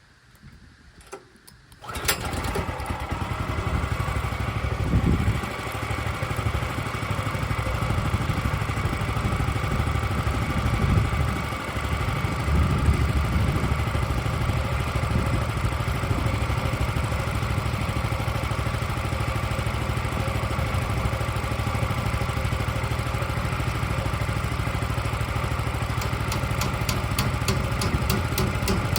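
Portable sawmill's engine starting about two seconds in, then running steadily.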